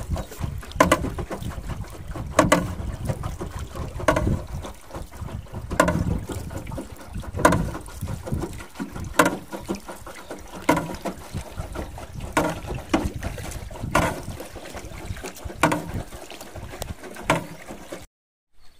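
Wooden paddles stroking through the water beside a small wooden boat, a sharp splash or knock about every second and a half, with wind rumbling on the microphone.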